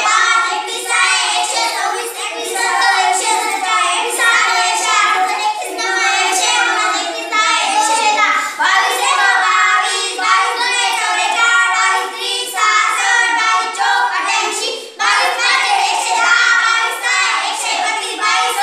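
A small group of children chanting multiplication tables in unison, in a rhythmic sing-song recitation.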